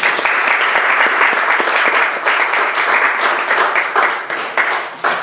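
Audience applauding: many hands clapping together. The applause starts suddenly, holds steady, then thins to a few last separate claps near the end.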